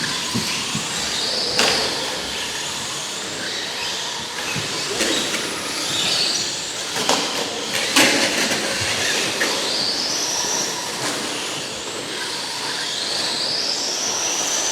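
Radio-controlled SC10 short-course trucks racing: high-pitched motor whines rising and falling as the trucks speed up and slow, with a few sharp knocks from the trucks hitting the track or barriers, over a steady wash of noise.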